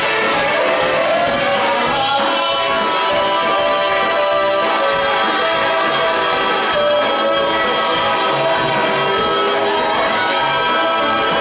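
Live band playing rock and roll: electric guitars and drums with a horn section of saxophones, trumpet and trombone, at a steady full level.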